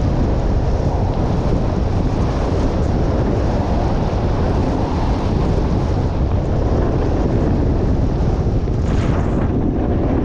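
Loud, steady wind rushing and buffeting on the camera microphone during a descent of the slope in a snowstorm, with a brief brighter hiss about nine seconds in.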